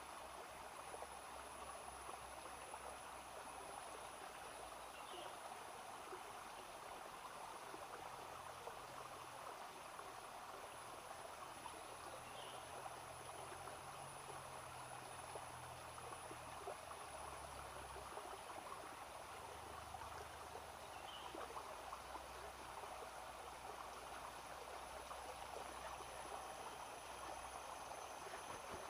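Small forest stream running steadily, with a thin, steady high-pitched insect drone over it.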